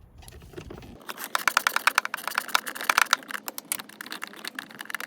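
Socket ratchet clicking quickly as it undoes the 13 mm bolt of the battery hold-down clamp. The clicks start about a second in, run fast and dense for a couple of seconds, then come more sparsely as the bolt works loose.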